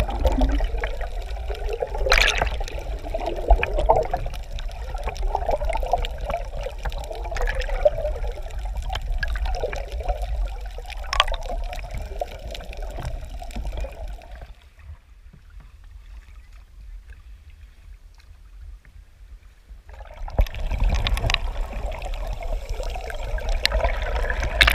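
Muffled rush and bubbling of water moving around a camera held underwater, with a few sharp clicks. Past the middle it drops to a faint hiss for about five seconds, then the sloshing returns.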